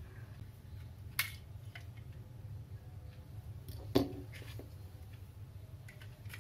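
Small plastic clicks and knocks from a Motex emboss label maker and its plastic letter wheel as the wheel is taken off and another one fitted. There is a sharp click about a second in and the loudest knock about four seconds in, over a steady low hum.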